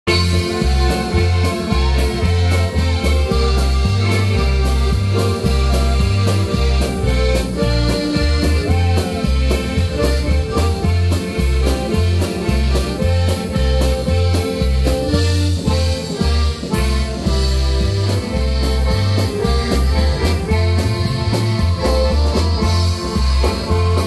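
Several accordions playing a lively tune together over a steady beat and a bass line that alternates between low notes, with no singing.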